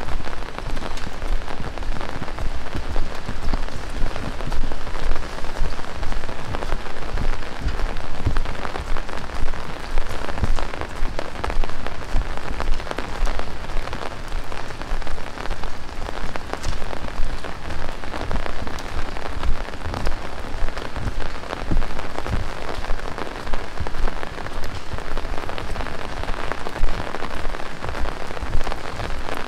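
Heavy rain falling steadily, with a dense stream of close, sharp drop impacts on surfaces.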